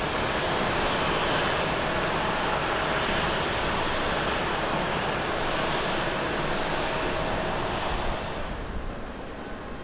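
Airbus A350-941's Rolls-Royce Trent XWB jet engines at takeoff thrust as the airliner climbs away: a steady roar with a faint steady whine in it. About eight seconds in, the sound drops abruptly to a much quieter level.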